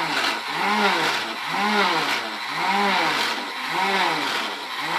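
Toy lawnmower's electronic engine sound, a revving note that rises and falls in pitch about once a second, over and over.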